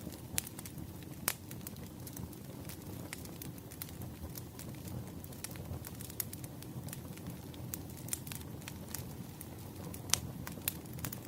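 Burning firewood crackling: a steady low rush of flames with scattered sharp pops, the loudest about a second in and near the end.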